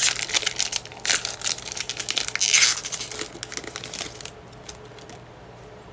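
Foil Pokémon booster pack wrapper being torn open and crinkled by hand in a run of rustling bursts, the loudest about two and a half seconds in; it stops about four seconds in.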